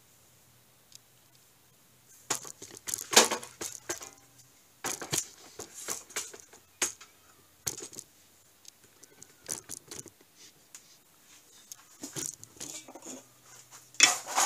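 Irregular clicks, knocks and clatter of hands handling tools and the camera in a workshop, loudest about three seconds in. Near the end a block of wood is set down on a scroll saw's metal table with a knock.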